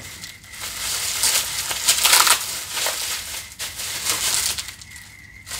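Bubble wrap and a plastic bag of grain crinkling and crackling as they are handled and unwrapped by hand, loudest about two seconds in.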